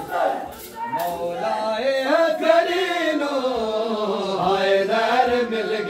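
Men's voices chanting a noha, a Shia mourning lament, in one long drawn-out phrase that slowly rises and falls, starting about a second in.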